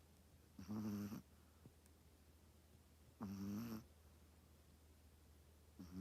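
Chihuahua snoring in her sleep: three short, pitched snores, one about every two and a half seconds.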